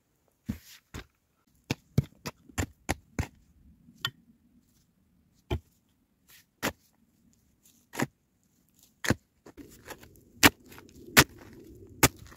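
Footsteps crunching over snow and soil as a series of sharp separate knocks, then a steel shovel chopping into the earth, digging with regular hard strikes about every 0.7 s over a scraping rustle of loose dirt in the last few seconds.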